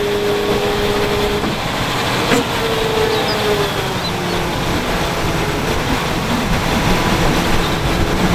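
Heavy MAN tipper truck running while its hydraulic tipper body is raised: steady engine and machinery noise, with a steady whine for the first second and a half and a light click a little over two seconds in.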